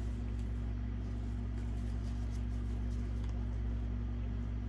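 Quiet chewing with faint soft clicks of the mouth, over a steady low hum.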